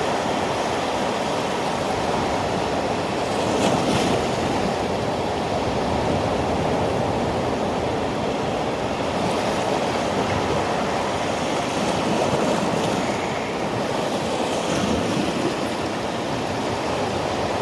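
Sea surf washing onto a beach: a steady rush of waves with slight swells in loudness.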